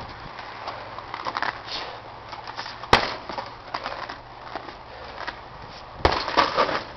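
Strikes on a hanging heavy bag: scattered lighter punches, one sharp hard hit about three seconds in, and a kick followed by a quick flurry of hits near the end.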